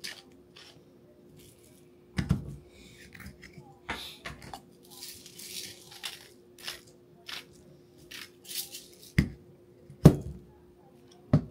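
Salt-and-pepper grinder worked over food: a run of gritty crackling and clicks, broken by a few sharp knocks of the grinder on the table, the loudest about ten seconds in.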